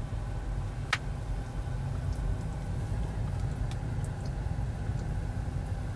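Low steady rumble inside the cabin of a Tesla Model 3 moving off slowly on electric drive, with no engine note and no gear-shift sound, only a single sharp click about a second in.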